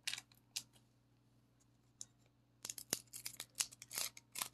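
Pokémon trading cards and foil booster-pack wrappers being handled, rustling and crinkling: a couple of short scrapes at the start, then a busier run of quick rustles from about two and a half seconds in.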